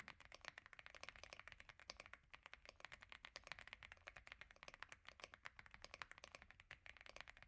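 Fast, continuous typing on an Akko F75 gasket-mounted mechanical keyboard fitted with its stock Reaper switches: a quiet, dense run of keystroke clicks.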